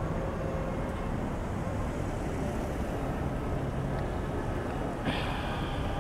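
Steady road-traffic rumble of passing vehicles, with a short higher-pitched sound about five seconds in.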